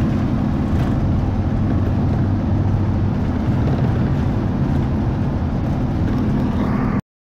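Steady engine hum and road noise of a coach, heard from inside the passenger cabin while it drives at speed; the sound cuts off suddenly near the end.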